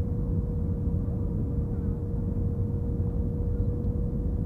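Steady cabin noise of an Airbus A320 jet airliner on approach: a dense low rumble of engines and airflow with a constant whine above it.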